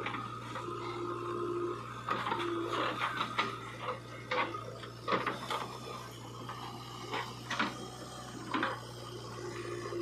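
JCB 3DX backhoe loader working its backhoe arm. The diesel engine runs with a steady low hum while the bucket digs into and scrapes through soil, with irregular clanks and scraping knocks from about two seconds in until near the end.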